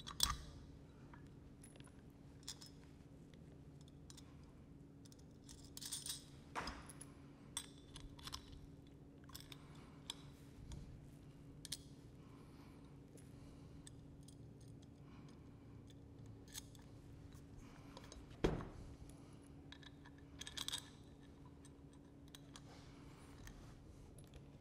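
Scattered light clicks, clinks and knocks of a Schmidt TeraValve's metal parts being handled and fitted by hand during reassembly, with a few louder knocks about 6 and 18 seconds in, over a faint steady hum.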